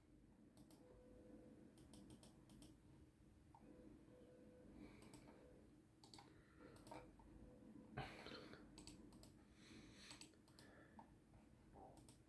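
Near silence: room tone with faint scattered clicks and a brief soft noise about eight seconds in.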